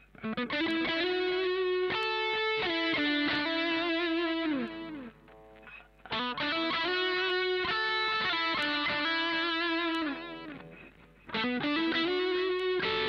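Electric guitar with a distorted tone through a Mooer GE100 multi-effects unit, playing a lead phrase three times with short pauses between: each time it slides up into a long held note and falls away at the end.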